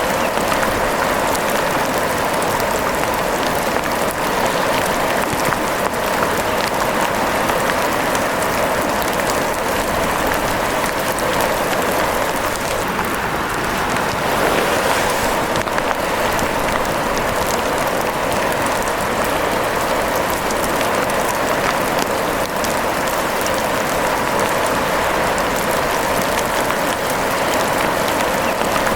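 Steady rain pattering, a dense even hiss of countless drops.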